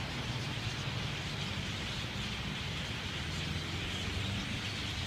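Steady outdoor background noise with a constant low hum, like distant road traffic; no distinct bird calls stand out.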